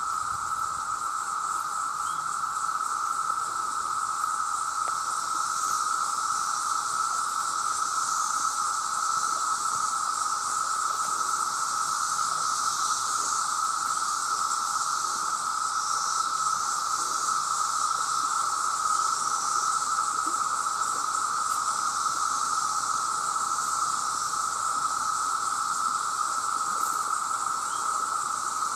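Chorus of many male cicadas calling to attract mates: a steady, unbroken drone with a high hiss above it.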